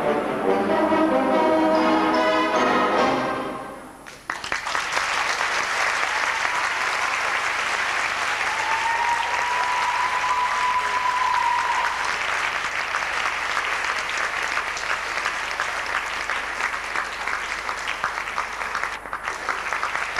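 Symphonic wind band, trombones and trumpets to the fore, playing the closing bars of a piece, which end about four seconds in. Audience applause follows and carries on, with a single held, slightly rising tone over the clapping partway through.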